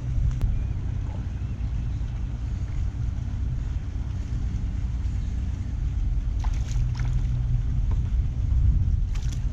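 Steady low rumble of wind buffeting the microphone on a kayak, with a few light clicks about six and a half seconds in and again near the end.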